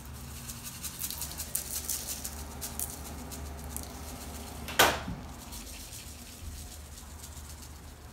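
Seasoning rub shaken from a plastic shaker bottle, a run of quick rattling taps over the first few seconds, then one sharp knock about five seconds in, over a low steady hum.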